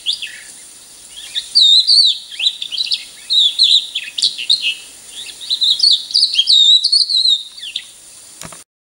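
Recorded song of a crested lark: a run of quick, warbling whistled phrases separated by short pauses. A click and a brief cut-out come near the end.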